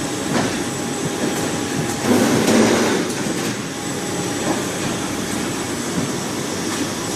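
Squid-processing machinery running in a workshop: steady mechanical noise with rattling clicks, swelling louder for about a second some two seconds in.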